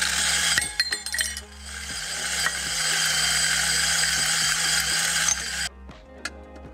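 Electric burr coffee grinder grinding whole beans: a steady whirring hiss with a burst of crackling clicks in the first second or two, cutting off suddenly about five and a half seconds in. A couple of light glass clinks follow near the end.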